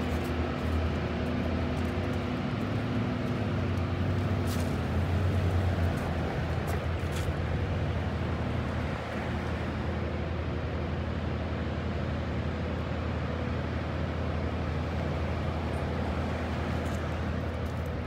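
Steady low rumble of a running vehicle engine on the street, swelling a little about four to six seconds in.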